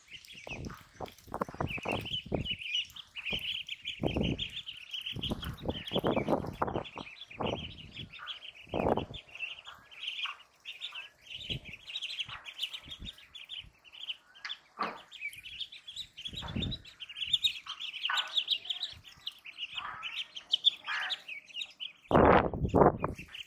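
A group of ducklings peeping continuously in rapid, high chirps, with scattered short thumps throughout and a louder rush of noise near the end.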